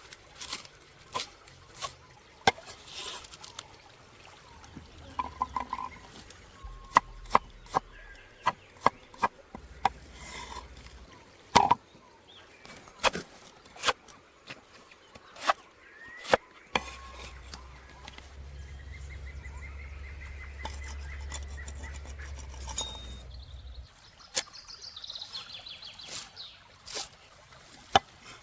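Irregular sharp clinks and knocks of cooking utensils and cookware, with a low steady rumble for several seconds past the middle.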